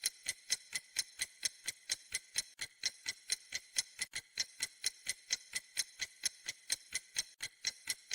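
Steady, even ticking of sharp clicks, about four a second.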